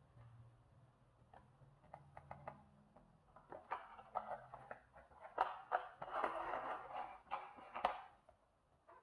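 Faint handling noises, as of unpacking: scattered clicks and knocks with rustling, busiest from about three and a half to eight seconds in.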